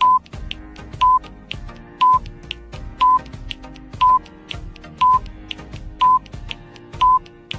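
Quiz timer sound effect beeping once a second, a short high beep each time, eight in all, over soft background music.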